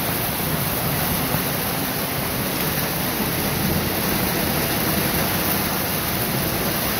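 Heavy rain pouring steadily onto trees and foliage, an even hiss with no breaks.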